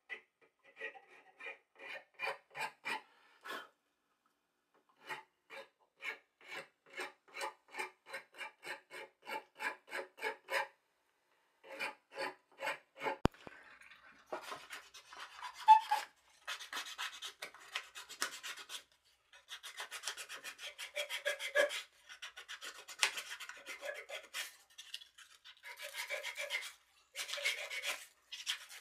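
Round file rasping along the curved edge of a small wooden piece in even strokes, about two a second, in short runs with pauses. About halfway through it gives way to quicker, denser rubbing strokes on the wood.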